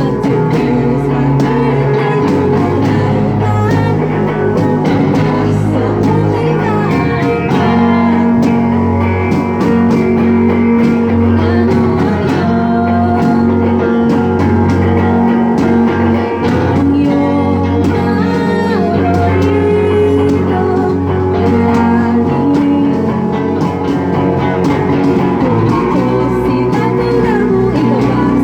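Live band music led by guitars over a steady bass line, played continuously.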